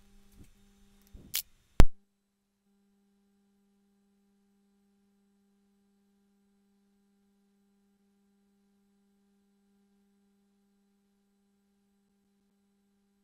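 A few sharp clicks in the first two seconds, the two loudest close together, then only a very faint steady low hum.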